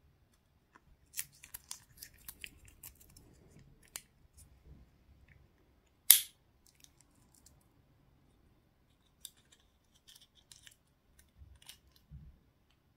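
Hands handling and opening plastic toy packaging: scattered small clicks and crackles, with one loud, sharp snap about six seconds in.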